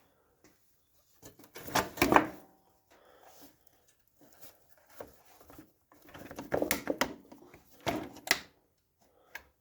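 Lawn mower engine's cooling shroud being worked loose and lifted off: two bouts of rattling and scraping, about two seconds in and again from about six to eight and a half seconds, with scattered knocks between.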